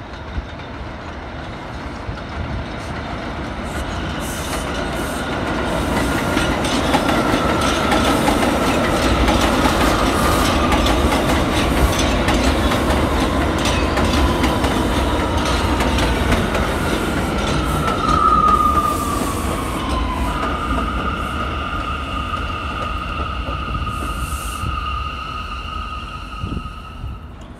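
R179 subway train approaching on elevated track and pulling into the station. It grows louder over the first several seconds, with rumbling and rail-joint clacking. About two-thirds of the way in, a high whine glides downward as the train slows, then holds as two steady high tones while it rolls in along the platform.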